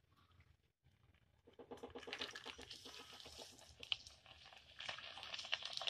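Near silence for about a second and a half, then yellow split dal hits hot oil in a mesh frying strainer and sizzles and crackles steadily, with many small pops.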